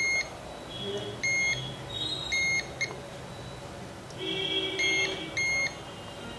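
Digital multimeter in continuity/diode mode giving five short, steady, high-pitched beeps at irregular intervals, one each time the probes touch a point on the board. The beeps mark near-zero resistance: the capacitors on the phone's buck-coil line are shorted.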